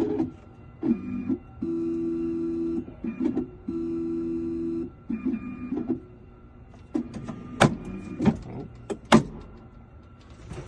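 Keyline Ninja key cutting machine's motors running in short steady stretches: two hums of about a second each among shorter starts and stops, followed by a few sharp clicks. The machine is acting up and its motor will not stay on, which the locksmith puts down to a loose wire inside.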